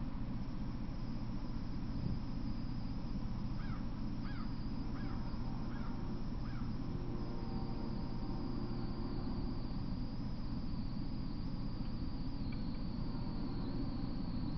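Steady outdoor background rumble with a thin high hiss, from a trail camera's microphone. A few seconds in, a bird gives about five short chirps in quick succession.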